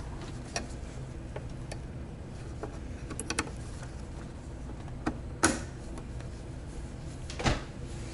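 Scattered plastic clicks and knocks as an embroidery hoop holding shirt fabric is handled and fitted onto a sewing and embroidery machine that is switched off, with the loudest knock about five and a half seconds in. A steady low hum lies underneath.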